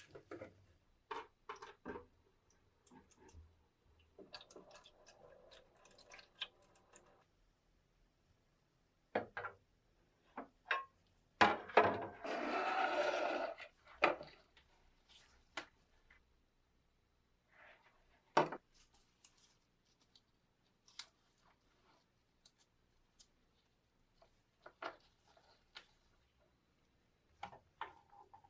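Small workshop handling sounds: scattered clicks and knocks of parts being handled, with a steady hiss lasting about two seconds near the middle.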